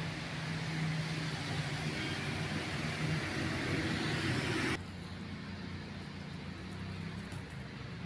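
Road traffic passing close by: a vehicle's running noise builds up, then cuts off abruptly about five seconds in, leaving a quieter low hum.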